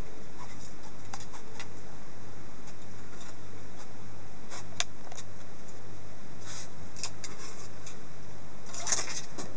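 A ferret's claws scratching and clicking on the tiled wall and sink edge as it climbs and noses about, in scattered short scrapes with a cluster near the end, over a steady low hum.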